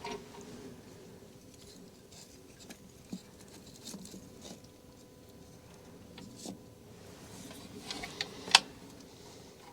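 A freshly lit fire catching in a small stove, with faint scattered crackles and ticks and one sharper crack near the end, over a low steady hum.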